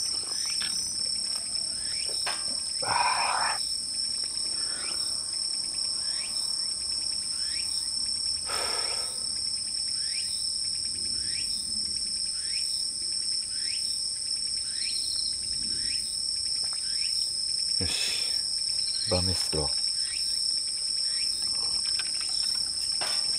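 Crickets and other night insects trilling in a steady high chorus, with a short falling chirp repeated about once a second. A few brief knocks break in now and then.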